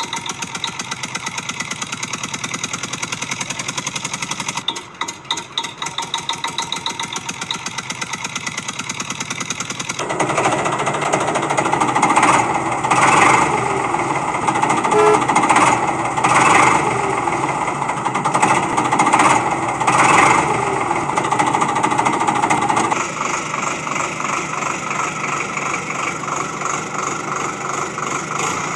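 Diesel engine running with a fast, even chugging beat. From about ten seconds in it turns louder and rougher, with several surges, as if working under load. At about twenty-three seconds it settles back to the steady chug.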